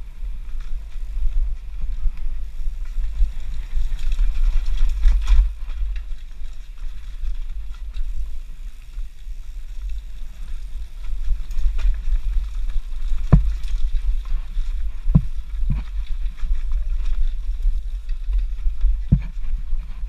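Wind buffeting an action camera's microphone as a downhill mountain bike rolls fast down a dirt and rock forest trail, with steady trail noise from the tyres. Several sharp knocks come in the second half as the bike hits bumps.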